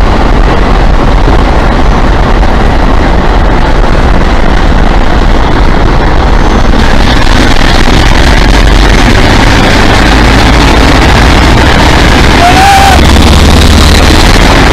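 Class 47 diesel locomotives' Sulzer twelve-cylinder engines working hard under power as the train pulls away, loud and close. The low rumble grows heavier in the second half as they notch up. A short rising tone sounds about two-thirds of the way through.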